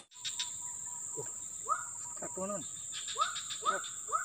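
Swamp insects buzzing in a steady high shrill tone, with short rising-and-falling animal calls repeating about twice a second from about a second and a half in.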